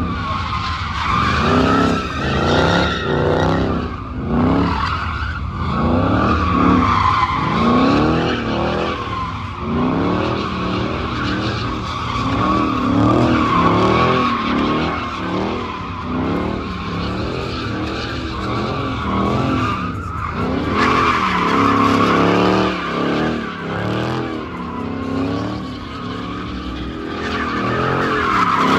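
A car doing donuts: its tires squeal steadily while the engine revs up and falls back over and over, about once a second.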